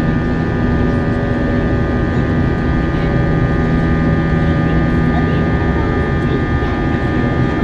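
Airbus A321-200 cabin noise in flight, heard from a window seat: a steady drone of engines and airflow with constant humming tones that do not change.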